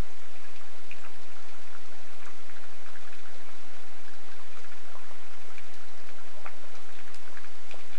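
Steady rain falling, with many individual drops ticking at irregular moments.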